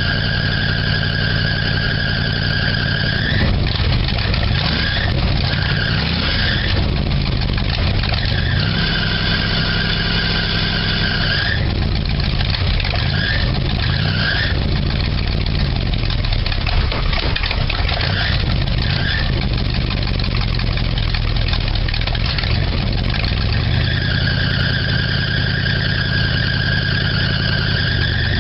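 1978 Dodge Power Wagon engine running, brought up in revs three times; with each rise a high-pitched belt squeal holds for a few seconds, with short chirps between. The squeal is typical of a loose drive belt.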